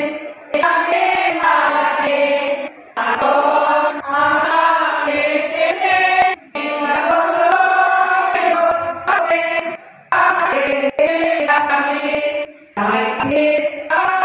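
A group of women singing a hymn together, in sung phrases of a few seconds each separated by brief pauses.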